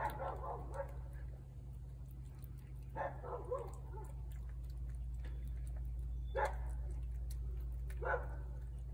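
A dog giving short barks and yips four times, every two to three seconds, over a steady low hum.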